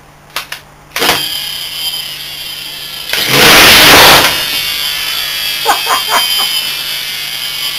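Welling universal AC brushed commutator motor from an LG front-load washer spinning up to a high whine on full mains power. About three seconds in a loud, harsh burst lasting about a second comes as the rubber bushing on the output shaft is thrown off. The motor whine then runs on, sagging slowly.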